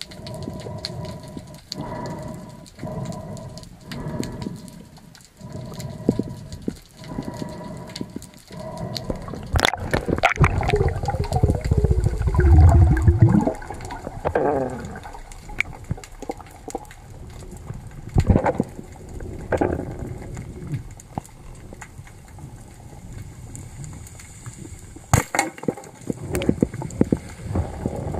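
Water sloshing and gurgling around a camera in the sea during a spearfishing dive. It pulses about once a second at first, then a louder rushing gurgle comes about ten seconds in and lasts some four seconds, followed by scattered clicks.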